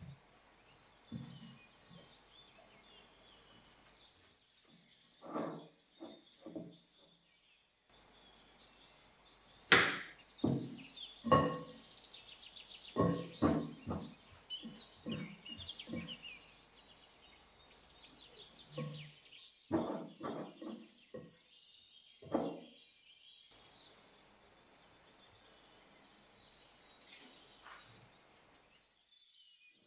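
Scattered knocks and clinks of kitchen utensils and dishes being handled, busiest in the middle, with birds chirping faintly in the background.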